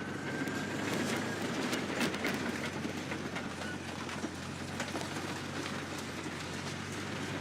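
Bulldozer's diesel engine running steadily under irregular sharp clanks and cracks of metal, with a faint brief squeal near the start.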